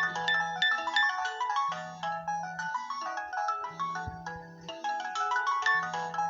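Mobile phone alarm tone: a melodic marimba-like tune of quick mallet notes over a low note that returns about every two seconds.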